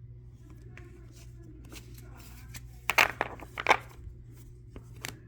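Trading cards being handled and slid against one another, with two short, loud scrapes a little past the middle and a few light clicks, over a steady low hum.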